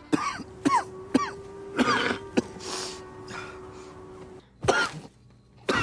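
A coughing fit: a quick run of about five sharp, hacking coughs, each trailing off in a falling voiced tail. Two more coughs come near the end.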